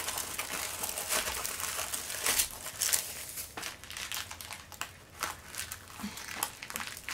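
Plastic packaging crinkling and rustling as a diamond painting kit is folded back into its wrapping and tucked into a white padded mailer bag, busiest in the first few seconds and quieter near the middle.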